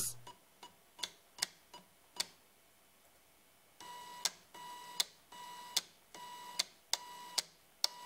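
An old printer's DC motor, slowed by pulse width modulation from an Arduino, turning its belt and gear train in a series of short moves. A few scattered clicks come first. Then, from about four seconds in, a steady whine comes in half-second runs, each ending with a click as the motor stops.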